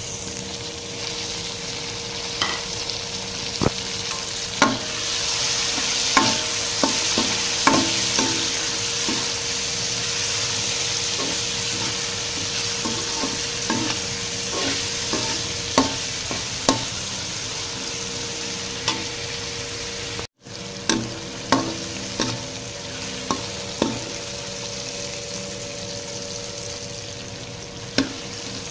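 Tomatoes and onions sizzling in hot oil in a metal wok while a metal spoon stirs them, clinking and scraping against the pan many times. The sound cuts out for an instant about two-thirds of the way through.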